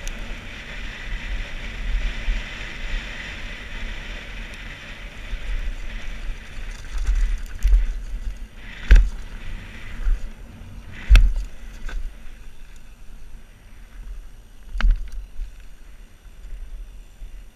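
Scott Gambler downhill mountain bike riding fast downhill, heard from a helmet-mounted camera: a steady rush of tyre and wind noise with knocks as the bike goes over bumps, the three loudest about nine, eleven and fifteen seconds in.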